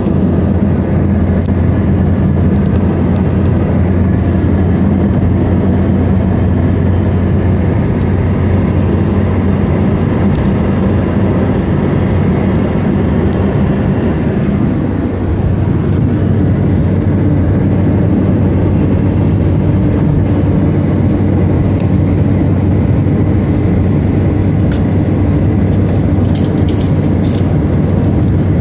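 Steady engine and tyre noise inside a moving taxi's cabin, a constant low drone with a hum underneath. A few light clicks near the end.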